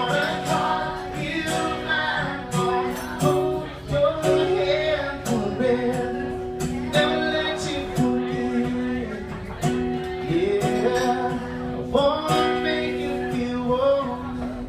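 Acoustic guitar strumming chords under singing voices. The crowd is singing along with the performer in a country song.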